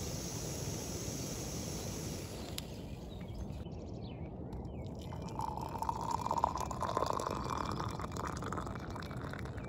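Boiling water poured from a camping kettle into a mug, the filling note rising in pitch as the mug fills. It starts a little over halfway through, after a few seconds of steady hiss.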